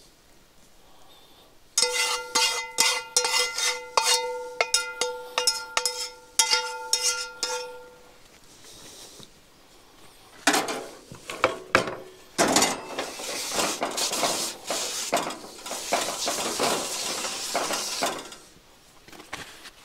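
Metal cookware and utensils clinking and clattering, a rapid run of strikes with a ringing metal tone beneath them. About halfway through this gives way to rougher metal scraping and rattling.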